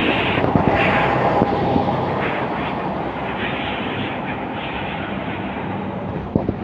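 Diesel engine of a biodiesel-fuelled articulated BRT bus pulling away and driving off: a steady engine hum that slowly fades as it leaves. A few sharp knocks sound in the first second and a half, and a double click near the end.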